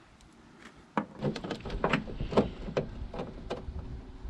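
Clunks and clatter of metal car parts being handled: a quick, uneven run of about ten knocks starting about a second in.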